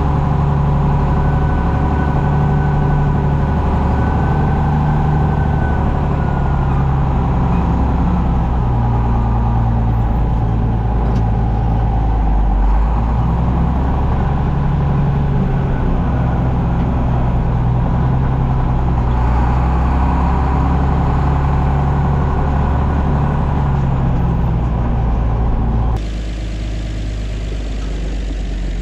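John Deere 7520 tractor's turbocharged six-cylinder diesel running steadily, its engine speed shifting a little up and down as it works. Near the end the sound suddenly turns duller and slightly quieter.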